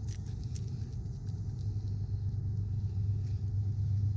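Steady low rumble of outdoor background noise, with a few faint light ticks in the first couple of seconds.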